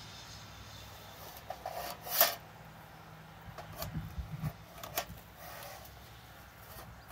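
Intermittent scraping, rubbing and light knocks of objects being handled, with one louder short noisy burst about two seconds in.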